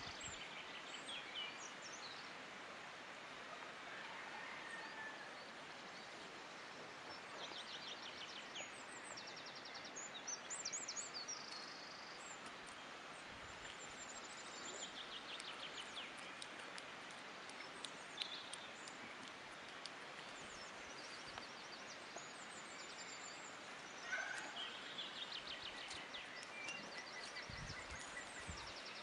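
Quiet outdoor ambience: a steady hiss with small birds chirping and trilling now and then, most clearly about a third of the way in and again near the end.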